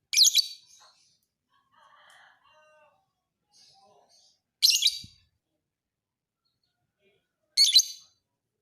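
Lovebird singing: three loud, high-pitched bursts of chattering song about half a second each, near the start, about halfway and near the end, with faint softer twittering between them.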